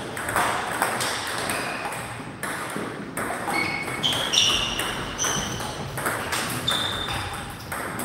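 Table tennis doubles rally: the ball clicks sharply off the paddles and bounces on the table in quick, irregular succession, with a few short high squeaks about halfway through.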